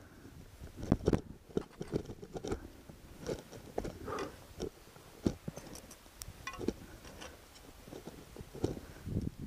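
Irregular crunching footsteps of a mountaineer's boots in snow, with knocks against snowy rock and a few faint clinks of metal gear.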